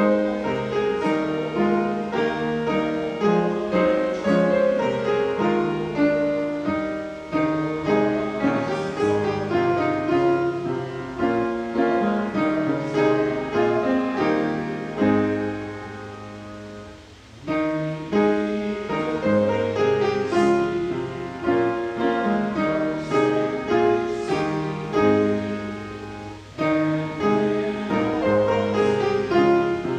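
Piano playing a hymn in full chords at an even pace, pausing briefly between phrases about 17 and 26 seconds in.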